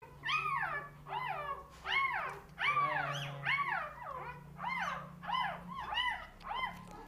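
Newborn puppies whining: thin cries that rise and fall in pitch, about one and a half a second, some overlapping.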